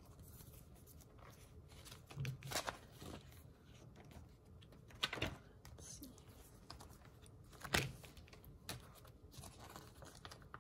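Faint rustling and crinkling of sticker sheets being handled, a few short crackles about two, five and eight seconds in, over quiet room tone.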